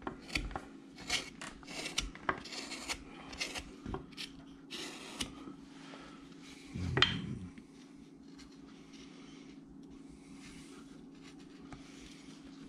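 Carving knife shaving wood in a run of short scraping strokes, with a single knock about seven seconds in. Fainter, softer strokes follow.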